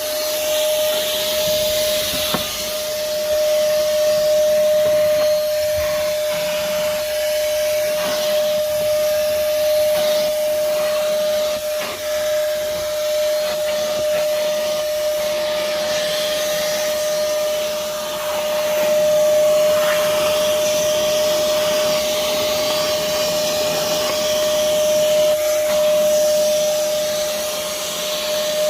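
Moosoo 18-volt cordless shop vacuum running with a steady whine and rushing air. The rush swells and dips as the nozzle moves, with a few brief clicks.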